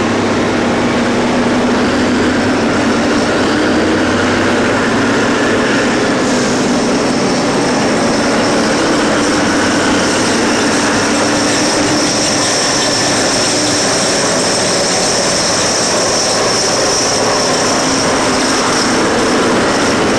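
Heavy diesel engines of a Cat 992C wheel loader and a Cat 777 haul truck running steadily under work. A steady high whine joins about six seconds in.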